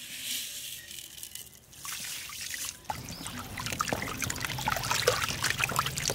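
Thin curry gravy in a large metal pot being stirred with a wooden paddle: liquid sloshing and splashing, getting busier from about three seconds in.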